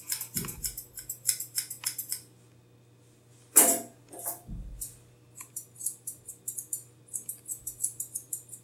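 Thinning shears snipping through a Shih Tzu's coat: quick runs of crisp metallic snips, about five a second, stopping after about two seconds and starting again about five seconds in. In the pause there is one louder, short burst of noise and a soft low thump just after it.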